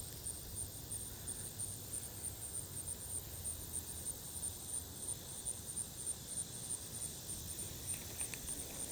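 Insects chirping steadily in a high, evenly pulsing trill, over a low rumble of outdoor background noise, with a few faint clicks near the end.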